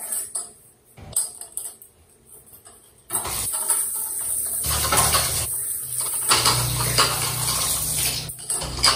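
Kitchen utensils clinking against a cooking pot. About three seconds in, a steady rushing noise starts suddenly and runs for about five seconds, with a low hum joining it partway through.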